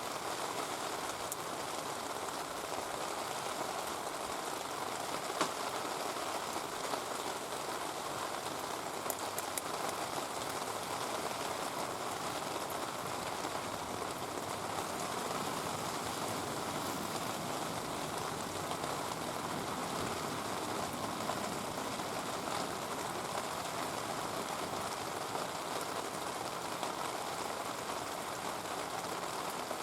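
Heavy rain falling steadily in a downpour, with a few faint sharp clicks.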